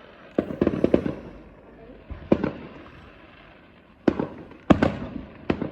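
Fireworks going off: a quick cluster of sharp bangs about half a second in, a single bang a little after two seconds, and a run of bangs from about four seconds in, each trailing off briefly.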